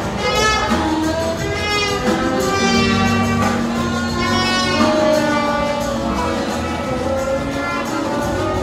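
A live band playing, with electric bass and drums under a high melody line whose notes bend and slide.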